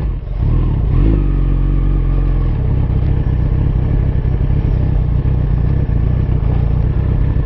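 Suzuki Hayabusa's inline-four engine under way: the engine note picks up about a second in, then runs steadily.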